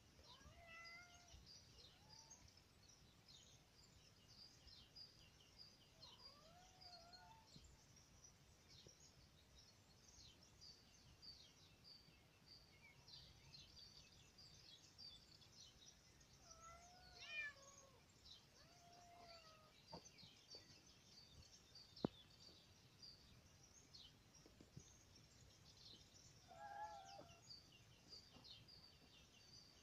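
Faint cat meows, a handful spread through, the clearest a bending meow about halfway. High bird chirping runs throughout, and a single sharp click comes about two-thirds of the way in.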